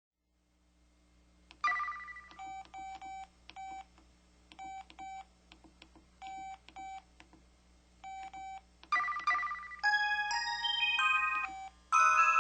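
SKY IM-8700 mobile phone playing its built-in electronic sound effects. A chime comes first, then short key beeps in small clusters. A second chime follows about nine seconds in, and a short electronic jingle of changing tones plays from about ten seconds.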